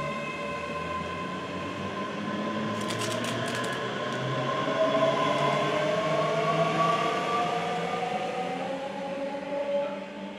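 ScotRail electric multiple-unit train pulling out of the station. Its traction motors whine in several tones that rise slowly in pitch as it picks up speed, with a few sharp clicks about three seconds in. The sound is loudest midway and fades near the end as the train draws away.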